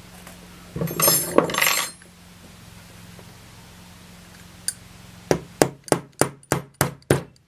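A hammer tapping a brass tube to drive a smaller tube into it: about eight sharp metallic taps, roughly four a second, in the last two seconds, each ringing briefly. About a second in comes a louder clatter of metal that lasts about a second.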